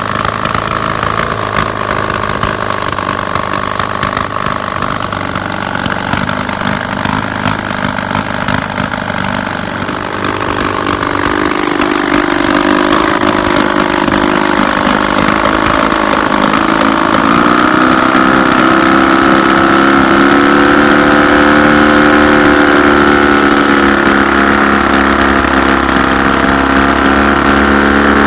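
McCulloch drone engine, a flat-four two-stroke, running with no mufflers on its open exhaust while turning a wooden pusher propeller. It runs at lower speed at first, picks up about eleven seconds in and again around seventeen seconds, then holds a steady, louder, higher note.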